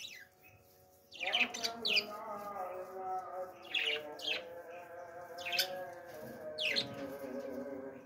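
Budgerigars chirping: short, sharp calls that sweep quickly down in pitch, coming in small clusters a second or two apart, starting about a second in.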